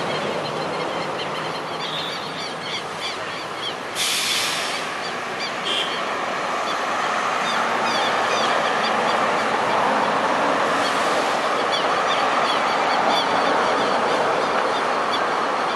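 Airbus A320 jet engines at takeoff thrust as the airliner accelerates down the runway: a steady rushing noise that grows gradually louder over the second half as it approaches.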